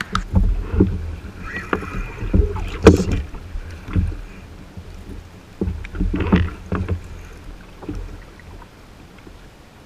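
Water slapping against a plastic fishing kayak's hull, with wind on the microphone and irregular knocks and thumps of gear and rod against the hull. The sharpest knock comes about three seconds in, and the knocks die down near the end.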